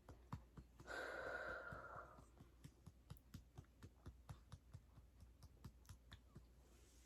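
A short breathy exhale about a second in, over faint irregular clicking; otherwise near silence.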